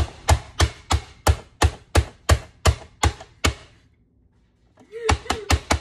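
Plastic press-down vegetable dicer slammed shut over and over, about three times a second, its grid blade chopping through onion and other vegetables, for roughly eleven strokes that stop abruptly. A few lighter clicks follow near the end.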